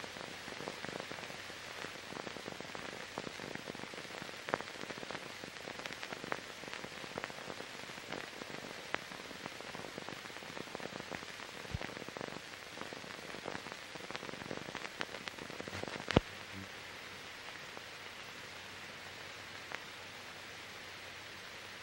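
Steady hiss with scattered crackles and pops: the surface noise of a blank optical soundtrack on old film. A sharp pop comes about three quarters of the way through, after which the crackle stops and only the even hiss remains.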